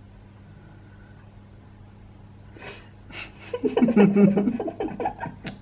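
A steady low hum, then about three seconds in a person's wordless voice sounds, breathy and laugh-like, that fade out near the end.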